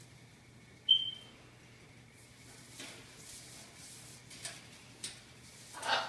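Young blue-and-gold macaw beating its wings in short bursts of flapping while clinging to a metal bar, the strongest flurry near the end. A single sharp, high ringing ping about a second in is the loudest sound.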